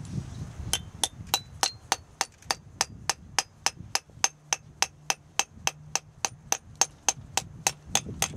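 Hammer tapping a steel wedge between feathers set in a drilled hole in rock, a steady run of sharp metal-on-metal strikes at about three and a half a second, starting just under a second in, driving the wedge to split the stone.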